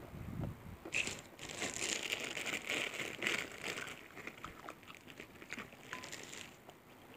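A clear plastic bag of crackers crinkling and rustling as a hand reaches in and pulls crackers out. The crinkling starts about a second in and stops shortly before the end.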